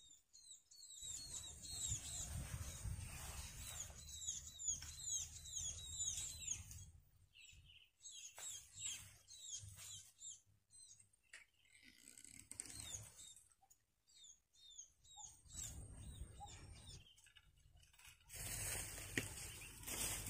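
A bird singing in runs of short, high, downward-slurred chirps, about two a second, over a faint low rumble. A louder rustle comes in near the end.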